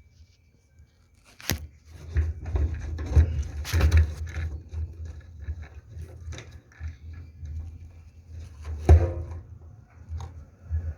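Irregular knocks, clicks and short scrapes of hands working a fuel pump's seal and parts into place, with a sharp knock about 1.5 s in and another about 9 s in, over low handling rumble.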